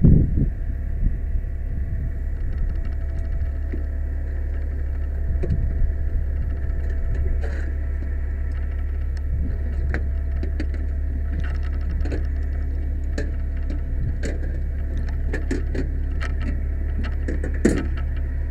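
Ladder fire truck's engine running steadily with a low rumble, with scattered light clicks and knocks as someone moves over the truck's metal steps and ladder.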